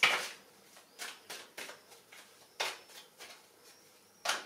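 A small deck of oracle cards being shuffled by hand: irregular, short swishes and snaps as the cards slide against each other, a few a second, with sharper ones near the start and near the end.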